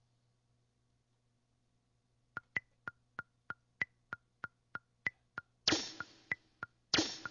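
Roland MV-8000 sampler's metronome clicking about three times a second, every fourth click higher-pitched as an accent; before the clicks start, about two seconds of near silence with a faint hum. Near the end, two loud drum-sample hits with a long ringing decay come in over the clicks as a drum break starts on the pads.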